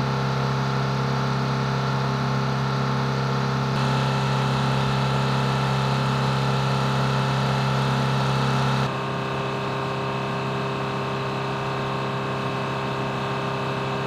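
Engine of a munitions loader running steadily at idle: a low hum with steady whining tones above it. The tone and level shift abruptly about four and nine seconds in.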